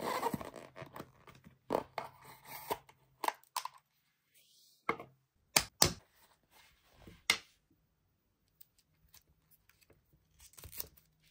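Hands handling a boxed watch set: a rustle of the cardboard box and its insert at first, then a series of sharp clicks and taps as a silicone watch strap is worked off its display pillow and the watch is handled. The loudest are two clicks in quick succession about halfway through, and faint small ticks follow near the end.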